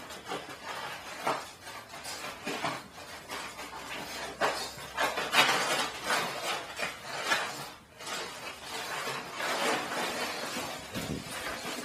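Plastic dog food bag crinkling and rustling in irregular crackling bursts as a pug noses into it, tugs at it and drags it across the tile floor. The crackling is busiest in the middle, with a short lull about two-thirds of the way through.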